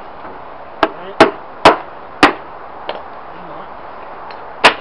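Sharp knocks on the wooden panels of an old TV cabinet being knocked apart: four hard hits about half a second apart in the first couple of seconds, a light tap, then one more hard knock near the end.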